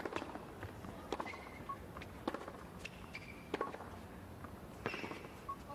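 Tennis ball struck back and forth by rackets in a baseline rally on a hard court: sharp hits about a second and a bit apart, with short squeaks of court shoes between them.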